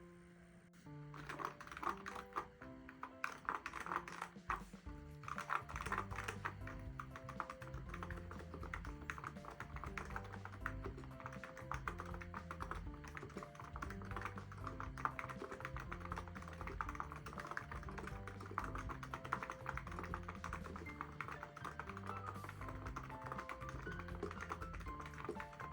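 Fast typing on a Hansung GK898B keyboard fitted with Chiikawa character keycaps: a dense, continuous run of keystroke clacks that starts about a second in, the keycaps making it far from quiet. Background music with a steady bass line plays throughout.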